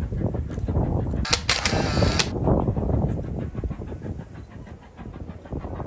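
Jacobite steam train crossing the viaduct at a distance: a steady low rumble with onlookers' voices. A loud burst of noise comes about a second in and lasts about a second.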